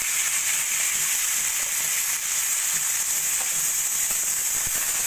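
Diced bitter gourd and potato sizzling steadily in hot oil in a kadai, just after being added to the pan.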